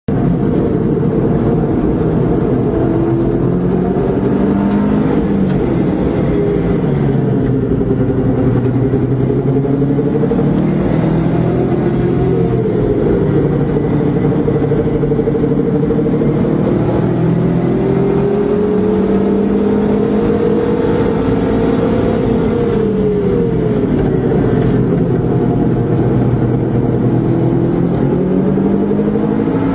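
Car engine and exhaust under hard driving, the engine note rising and falling repeatedly through the gears. The exhaust has an uneven, unequal-length-header-like sound that the driver suspects is an exhaust fault.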